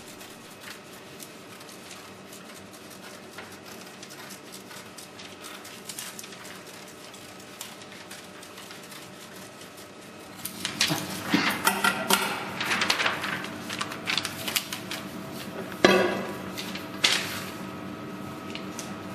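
Scissors snipping through sublimation transfer paper, with the cut sheet rustling and crackling as it is handled, louder in the second half. Near the end come a couple of sharp knocks as the ceramic plate is set on the paper.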